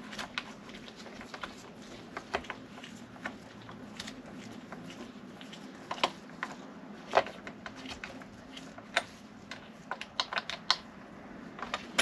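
Irregular small clicks and taps of a hex driver and small metal parts as a bolt is fastened on an RC car's aluminum rear hub carrier. The sharpest clicks come in the middle.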